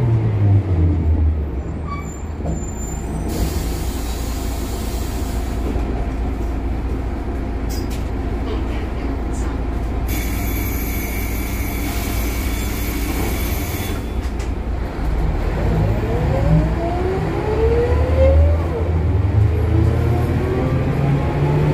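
Ikarus 260 city bus with a ZF gearbox heard from inside the passenger cabin: the diesel engine note falls as the bus slows, then runs low and steady with two long hisses. From about 16 s the engine pitch rises in several sweeps through the gears as the bus pulls away.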